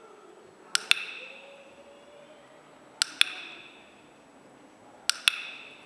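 Dog-training clicker clicked three times, about two seconds apart, each a sharp double click with a short metallic ring. The clicks mark the dog's nose touches on the target.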